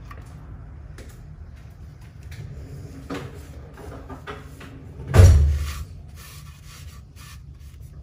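Faint clicks and rubbing from hands working an oil drain plug under a car, with one dull thump about five seconds in, the loudest sound.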